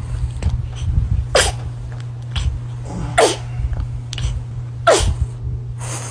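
Baby sneezing three times in quick succession, each sneeze a sudden burst with a quickly falling squeak, about a second and a half to two seconds apart.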